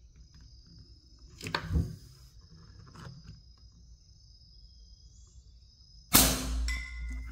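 Artemis M30 Hellcat 5.5 mm air rifle firing one shot about six seconds in: a sharp report with a low boom trailing off, followed by a faint ringing from the distant steel plinker target being struck. About a second and a half in there is a short mechanical knock from the rifle being readied.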